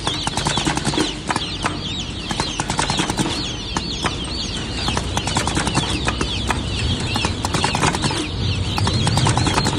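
A flock of birds chirping over one another in a dense, continuous chorus of short high calls, with many sharp clicks and flutters mixed in.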